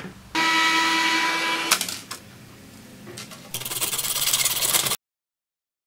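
Hand coping saw cutting through a white plastic part with quick back-and-forth strokes, cut off suddenly near the end. Before it, about a second of mechanical whirring with a steady whine.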